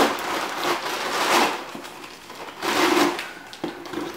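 Scissor blade cutting and scraping through packing tape and cardboard on a shipping box, in several rasping strokes about a second apart.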